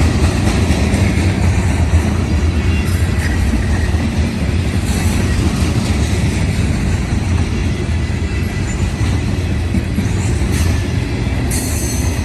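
Freight cars of a CSX manifest train rolling past with a steady, loud rumble of wheels on rail, with a brief high squeal near the end.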